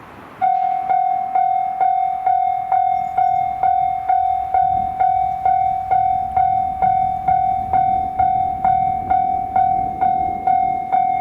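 Japanese level-crossing alarm bell switching on about half a second in: a loud ringing tone struck a little over twice a second, the warning that a train is approaching the crossing.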